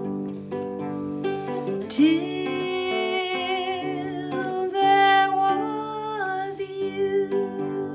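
Acoustic guitar accompaniment with a singer holding a long closing note, wavering with vibrato from about two seconds in.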